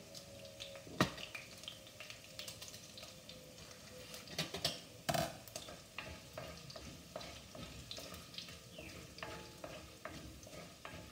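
Hot oil sizzling and crackling in a kadai as mustard seeds, ginger, garlic, curry leaves and dried red chillies fry, while a wooden spatula stirs and scrapes through them. There are two sharp knocks, about one second and about five seconds in.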